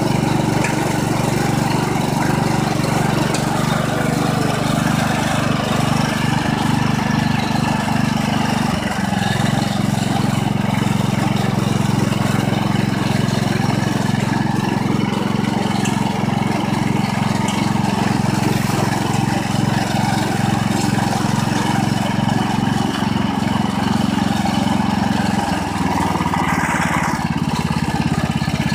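Harbor Freight Predator 14 hp single-cylinder engine on a Sears Suburban Custom 10XL garden tractor running steadily while the tractor drives. Its note changes slightly about nine seconds in and again near the end.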